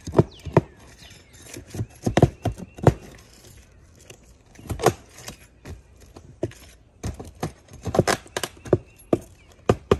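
Irregular clicks and knocks of asphalt shingles and a pry bar being handled at a roof's edge, a dozen or so sharp taps spaced unevenly.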